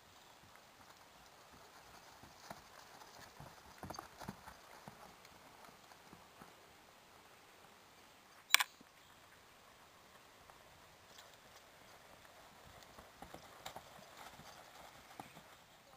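Faint hoofbeats of a ridden horse moving over grass, in clusters that grow louder as it passes close about four seconds in and again near the end. A single sharp click about halfway through is the loudest sound.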